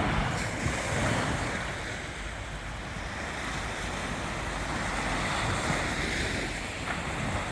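Sea waves breaking and washing up on a beach, swelling near the start and again later, with wind blowing on the microphone.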